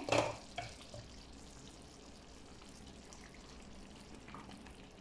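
Thick chicken curry simmering with a faint sizzle in a frying pan, after a brief clatter at the start; a spatula stirs through it near the end.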